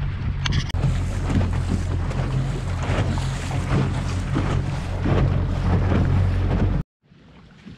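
Small boat's outboard motor running steadily under heavy wind noise on the microphone. The sound cuts off abruptly about seven seconds in, leaving only a faint hiss.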